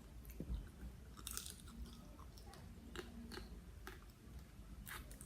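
A person chewing and biting into spicy blue swimming crab salad, with scattered faint wet clicks and small crunches.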